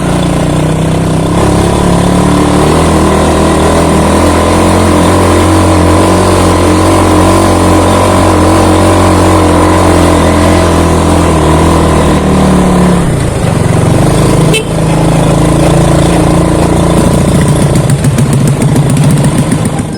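Motorcycle engine running steadily while under way, over a steady rushing noise. About two-thirds of the way through, the engine note shifts, and a short click follows.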